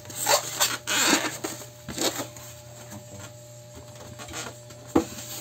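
Styrofoam packing being pulled off a boxed juicer: scraping, squeaking and rustling of foam and plastic wrap for the first couple of seconds, quieter handling after that, then a single sharp knock about five seconds in.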